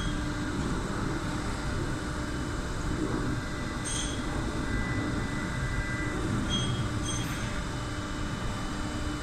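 Vibratory bowl feeder running, a steady buzz and rattle of M3 self-clinching nuts in the bowl, with a few light metallic clinks about four, six and a half and seven seconds in.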